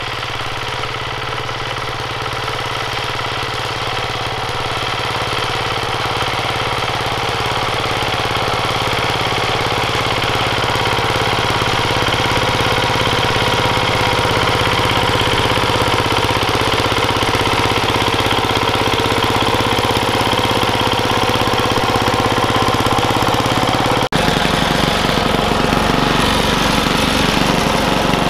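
Yanmar TC14 walk-behind tractor's single-cylinder diesel engine running steadily as it works the soil, growing louder as it comes closer. About 24 seconds in the sound cuts abruptly to a nearer engine note with a stronger low, pulsing beat.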